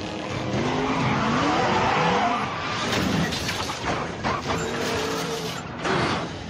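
Car engines revving up and down in a high-speed chase, with tyres skidding and squealing on the road.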